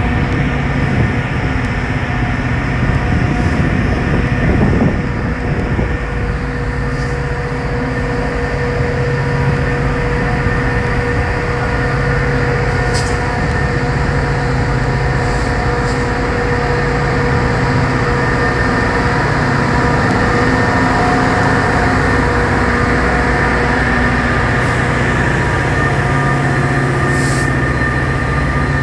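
Metra diesel-electric passenger locomotive's engine running: a steady rumble with a steady whine over it, growing slightly louder toward the end.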